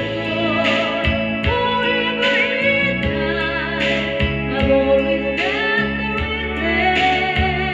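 A woman singing karaoke into a microphone over a backing track, her voice wavering with vibrato on held notes.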